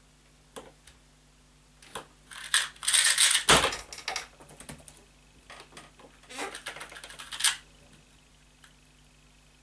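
Rapid plastic clicking of a Qiyi Wuxia magnetic 2x2 speed cube being turned in a fast solve, ending about three and a half seconds in with a thud as the hands slap down on the timer. Then lighter key clicks on a laptop keyboard, and a second run of quick cube turns as the puzzle is scrambled.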